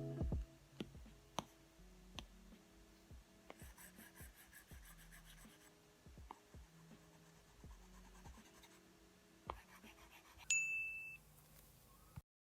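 Apple Pencil tip tapping and scratching on an iPad screen in scattered light ticks, with a short high ding near the end.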